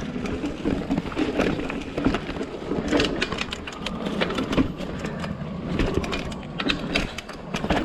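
Downhill mountain bike clattering over rough trail: a steady rough rumble of tyres on dirt and rock, with a dense run of sharp rattles and knocks from about three seconds in.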